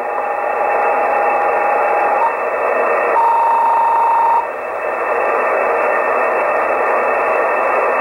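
Shortwave receiver hiss and static from a software-defined radio in upper sideband mode, tuned across the 20 m amateur band between stations. A steady whistle sounds for about two seconds, then a slightly higher whistle comes in about three seconds in and stops a second or so later.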